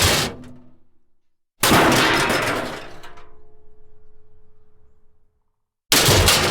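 Metal crash sound effects. The tail of one crash dies away, then a loud crash of metal about one and a half seconds in leaves metallic ringing tones that fade over several seconds. Another crash starts near the end.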